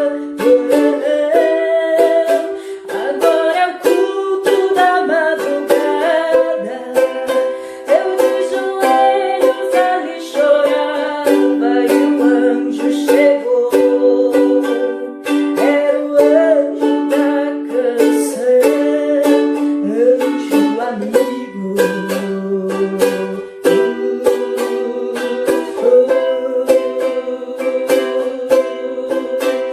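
Ukulele strummed in steady chords, playing a hymn tune.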